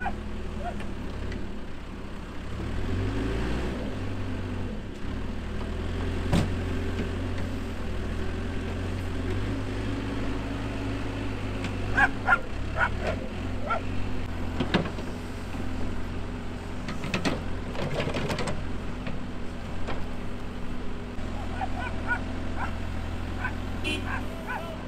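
Backhoe loader's diesel engine running steadily while it works to free a motorhome stuck in mud, with a few short sharp sounds on top, the loudest about halfway through.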